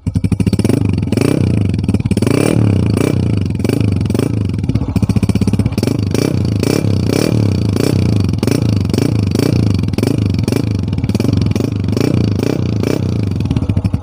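Honda CG125's single-cylinder four-stroke engine running steadily through an original Honda chrome silencer, with an even, pulsing exhaust beat.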